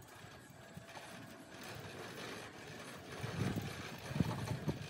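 Irregular dull knocks and clatter, bunched in the second half, from a length of PVC casing pipe being lowered into a borehole through a well-drilling rig.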